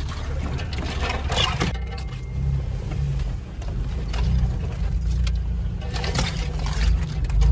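Jeep Wrangler engine and drivetrain running at low speed, heard from inside the cab as it crawls a rough dirt trail. There are a few scrapes and knocks about one to two seconds in, as brush rubs the body.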